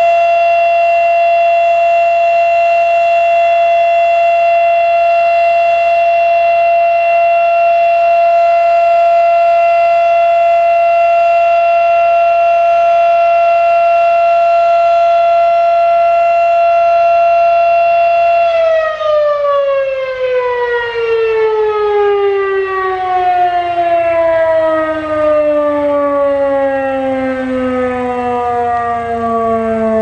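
Fedelcode Type Mach 7 12-port electromechanical civil defense siren sounding a steady alert tone, then, about 18 seconds in, winding down with a steadily falling pitch as the alert cycle ends.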